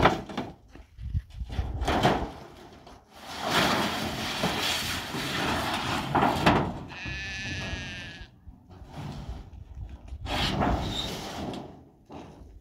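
A bleating sheep or goat gives one high, wavering call of a bit over a second, about seven seconds in. Stretches of hiss-like noise come and go around it.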